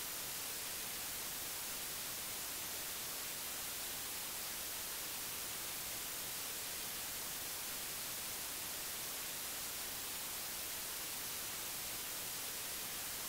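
Steady hiss of white-noise static, strongest in the high end, with no tones or events in it.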